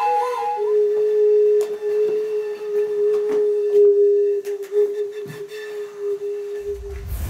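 Clay ocarina-style whistle playing a few quick notes, then one long steady note held for about six seconds, with scattered clicks and knocks over it. Near the end it cuts to the low rush of ocean surf.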